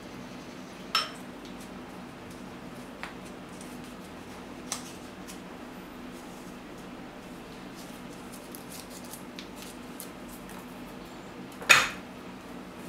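Kitchenware clinking while cooking at the stove: a sharp clink about a second in, two lighter ones a few seconds later, and the loudest ringing clink near the end, over a steady low hum.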